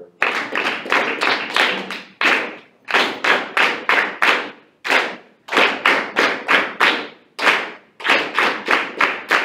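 A class of students clapping a written rhythm of eighth and quarter notes together, about three to four claps a second with short breaks roughly every two and a half seconds. A few of the eighth notes land off the beat.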